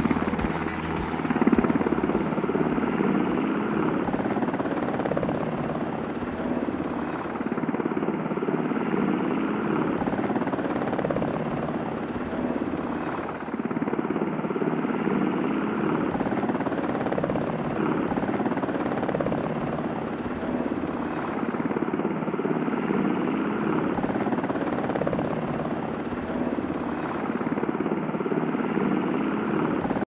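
Helicopter in flight: steady, dense rotor and engine noise.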